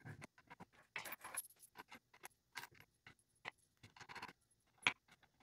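Light, irregular clicks and clinks of steel washers, wing nuts and small wooden blocks being handled and fitted onto the threaded rods of a bowl press, with one sharper click near the end.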